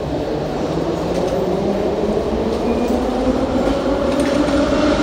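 Metro train running in the station below: a steady rumble with a motor whine that slowly rises in pitch and grows louder.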